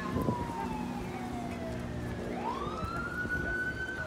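Emergency vehicle siren wailing in the distance: one slow tone that slides down for about two seconds, then sweeps back up and holds high near the end.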